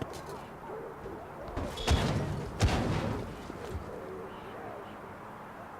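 Video game sound effects: two loud bangs about three quarters of a second apart, like gunshots or explosions, over steady game ambience.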